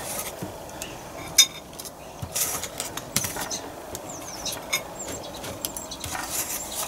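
Table knife cutting chunks off a cold, hard block of butter in its wrapper and scraping them onto slices of bread: irregular knife scrapes with light clicks of the blade against the plate.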